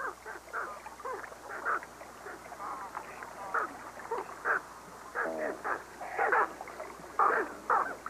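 Great white pelican chicks calling at the nest: many short calls, several a second at times, some sliding up or down in pitch, irregularly spaced.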